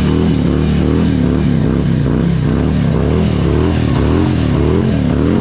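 Motorcycle engine being revved over and over, its pitch rising and falling about twice a second.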